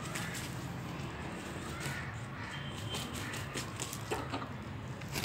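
Chickens clucking and squawking in short harsh calls, over a steady low hum.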